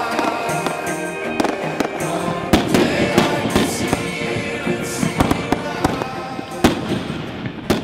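Aerial fireworks going off in a string of sharp bangs, a few of them much louder than the rest, over background music.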